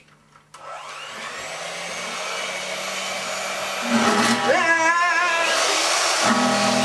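Electric hand mixer switched on about half a second in, its motor whirring and growing steadily louder as it is held against the strings of an acoustic guitar. From about four seconds in, the spinning beaters set the strings ringing, adding wavering, buzzing guitar tones over the motor noise.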